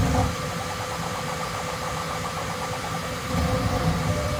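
Bambu Lab X1C 3D printer printing in ludicrous speed mode: a steady mechanical hum with a fast, even rattle of about ten ticks a second from the print head's rapid moves. There are louder low surges at the start and again near the end.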